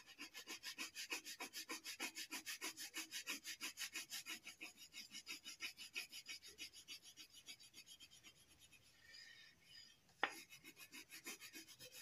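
Crayon scribbling back and forth on a paper worksheet in quick, even strokes, about six a second. The strokes pause about eight seconds in, a single sharp tap comes about ten seconds in, and then the strokes start again.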